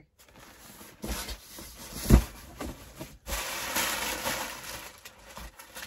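Packing paper rustling and crinkling and a cardboard box being handled as hands dig through it, with a loud knock about two seconds in.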